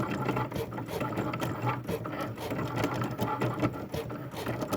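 Cricut cutting machine running and making a loud noise: a steady motor hum with a rapid, uneven clatter of mechanical ticks.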